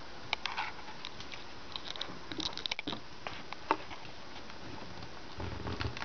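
Handling noise from a handheld camera: scattered small clicks and light rustles over a steady hiss, with a brief low rumble near the end.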